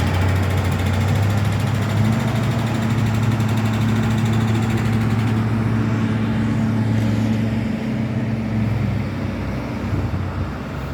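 Engine of a heavy construction machine running, its pitch stepping up about two seconds in and easing off near the end.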